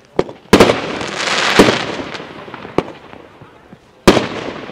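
Heron Cake 14-3 firework battery firing its shots: a loud bang about half a second in, followed by a rushing, crackling noise that fades over about two seconds. Further sharp reports come at about 1.6 s and 2.8 s, and a loud one about four seconds in.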